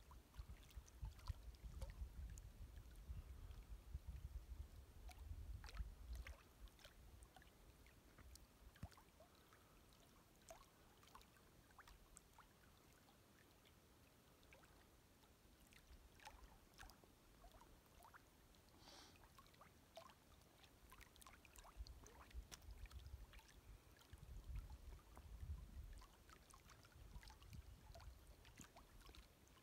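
Near silence: faint gusts of wind rumbling on the microphone during the first few seconds and again near the end, with small scattered clicks of wavelets lapping at the shoreline.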